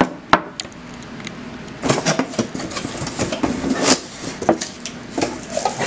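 A Pyrex glass measuring cup is set down on a wooden table with one sharp knock, about a third of a second in. From about two seconds in, an irregular run of clicks and rustles follows as the cardboard box and its packing are handled to get the next cup out.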